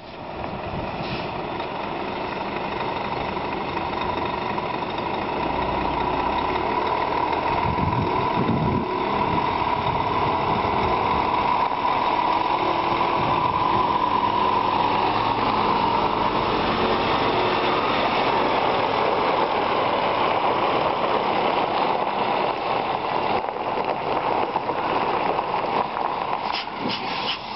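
Scania G490 truck's 13-litre inline-six diesel pulling away at low speed with a loaded grain trailer, its engine note and a steady whine growing louder as it approaches and then fading as it drives past.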